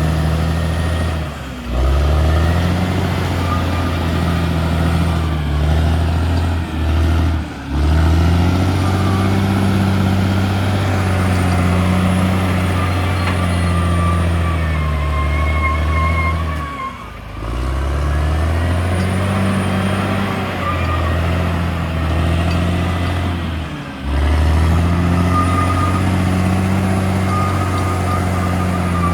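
Caterpillar D6R XL bulldozer's diesel engine running steadily under load. About four times it dips briefly in level and pitch, then comes back up.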